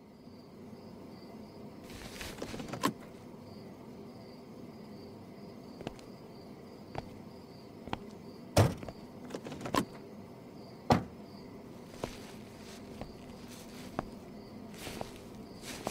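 Insect-like chirring, cricket-like with a pulsing high note, with scattered sharp clicks and knocks, the loudest about halfway through; an ambient sound-effect opening to a song, with no music yet.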